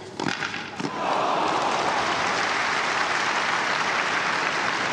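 Applause: a couple of separate claps, then steady, dense clapping from about a second in.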